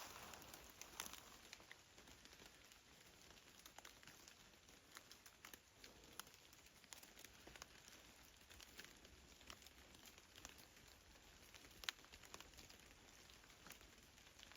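Near silence, with faint scattered ticks and patter and one sharper tick near the end.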